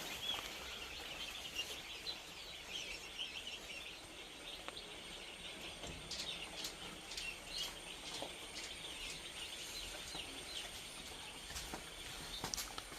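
Young chicks peeping: a busy chatter of short, high cheeps, thinning out after the first few seconds, with sharper single downward-sliding peeps scattered through it.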